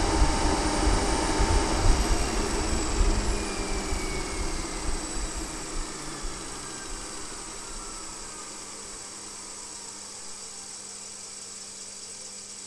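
Ward Leonard drive's machines spinning down after the AC drive motor is disconnected: the AC motor slows and the DC motor fed by its generator slows with it. Their whine falls steadily in pitch and fades over several seconds, leaving a steady low hum.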